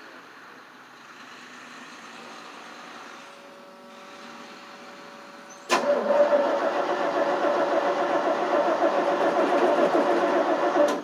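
Engine of a 1988 FMC 6000 cranking on its starter for about five seconds without catching. The sound starts suddenly about halfway through, pulses steadily and cuts off sharply. It is a hard start: the carburettor is not getting fuel.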